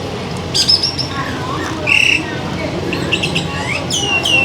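Small birds chirping: a string of short, high chirps and quick falling whistles, with a pair of downward-sliding calls near the end.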